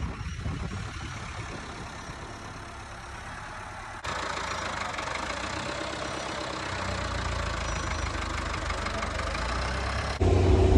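A vehicle engine running steadily with a low hum. It gets abruptly louder about four seconds in and again near the end.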